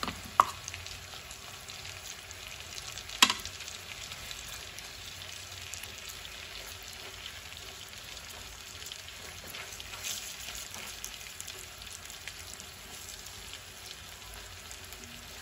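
Large pieces of fish shallow-frying in oil, a steady sizzle. Two short sharp clicks break through, the louder one about three seconds in.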